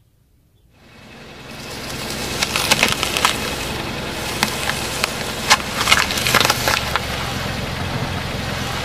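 A car rolling slowly over crunchy objects, its tyre crushing them with repeated sharp cracks and crackling. The car's low running sound rises over the first couple of seconds, and the cracks come in clusters from about two and a half seconds in.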